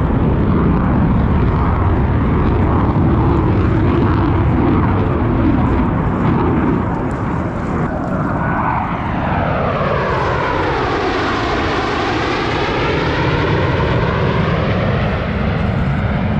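Blue Angels F/A-18 Super Hornet jet noise, loud and continuous. From about halfway through, the tone sweeps down and back up as a jet passes close by.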